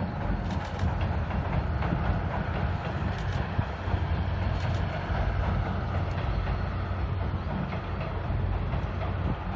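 Steam-hauled Paleo Express passenger train running by: a steady low rumble of wheels on the rails, with a few short clicks.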